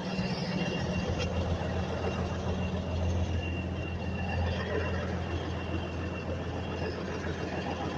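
An engine running steadily with a low, even hum and a faint thin whine above it. There is a single light click about a second in.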